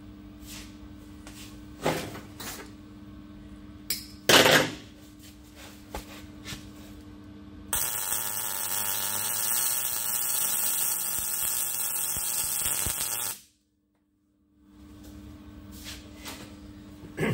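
MIG welding arc crackling steadily for about six seconds as a short weld run is laid on a small steel roller, then cutting off suddenly. Before it, a steady electrical hum with a couple of knocks as the work is handled.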